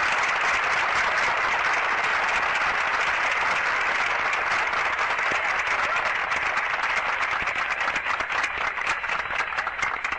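Large audience applauding steadily, then thinning to scattered separate claps near the end as it dies away.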